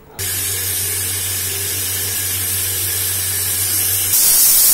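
Aluminium stovetop pressure cooker whistling: the weight valve lifts and steam hisses out steadily, the sign that the cooker has come up to pressure. The hiss grows louder and sharper about four seconds in.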